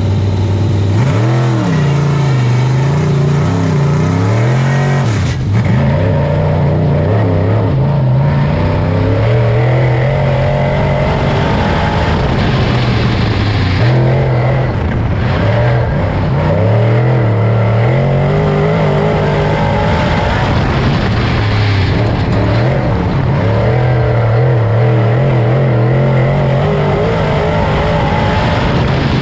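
Super Dirt Late Model's V8 engine at racing speed during qualifying, loud and continuous. Its pitch climbs on the straights and drops back as it lifts for the corners, over and over, lap after lap.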